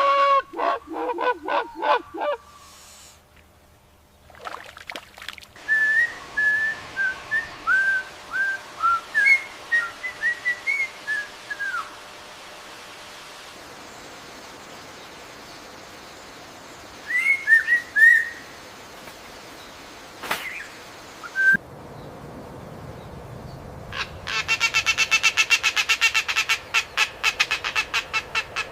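Calls from several different birds in turn. First a quick run of pitched notes, then a series of short downslurred whistles, a few more whistled notes later, and near the end a fast, harsh chattering call, all over a steady background hiss.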